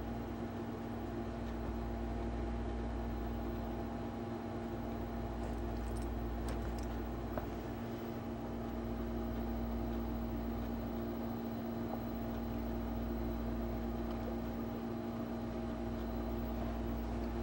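Steady mechanical hum of a household appliance or fan running, with several fixed tones over a low rumble. A few faint clicks come between five and eight seconds in, as a dog scratches and chews at its itchy skin.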